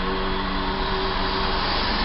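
Steady whir of a car idling at a standstill, heard from inside the cabin.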